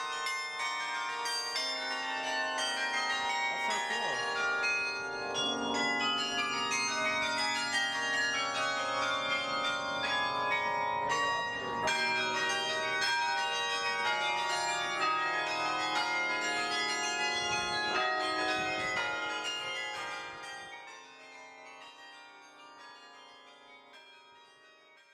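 Carillon bells of UC Berkeley's Campanile playing a tune, many struck notes overlapping and ringing on; the sound fades out over the last few seconds.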